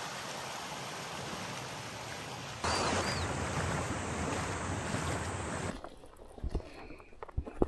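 Steady rush of river water pouring over a low weir. About two and a half seconds in it cuts to a louder steady rushing with two short high chirps, and near the end it drops to quiet ambience with faint clicks.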